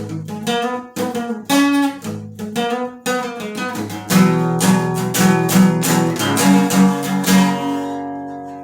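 Acoustic guitar playing an instrumental ending: picked notes, then strummed chords about four seconds in, finishing on a final chord left to ring out and fade.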